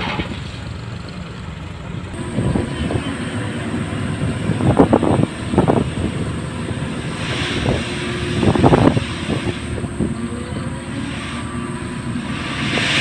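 Motor grader's diesel engine running under work, with several short louder rattling surges and a rushing hiss that swells near the end.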